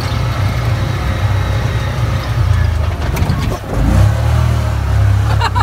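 Side-by-side off-road vehicle's engine running hard under throttle as it drives along a dirt trail. The engine sound drops briefly about three and a half seconds in, then picks up again.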